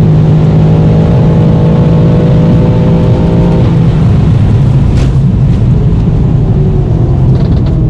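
Inside the cabin of a tuned BMW F90 M5: its twin-turbo V8 runs at a steady note over heavy road and tyre rumble. The engine tone fades about three and a half seconds in, leaving the rumble, and a single sharp click sounds about five seconds in.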